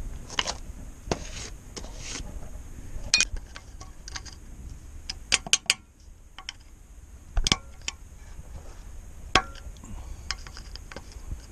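Scattered sharp metal clicks and clinks of hand tools: a screwdriver picked up from a tool tray, then used to work a steel cotter pin into a castle nut on a truck's front steering joint.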